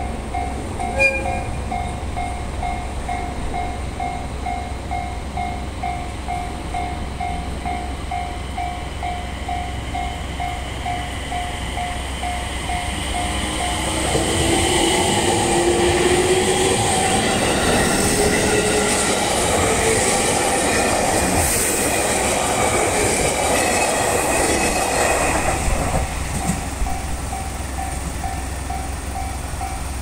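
Japanese level-crossing bell dinging in a rapid, even rhythm, with a short train horn toot about a second in. About halfway through, a six-car 701 series + E721 series electric train passes over the crossing for about twelve seconds, wheels clattering and its traction motors whining up in pitch as it pulls away from the station. Once it has gone, the crossing bell is heard again.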